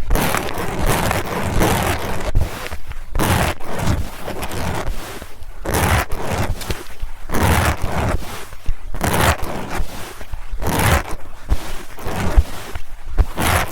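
Fast, aggressive scratching and rubbing on a TASCAM recorder's microphones. It comes as irregular noisy strokes with brief gaps, and some knocks.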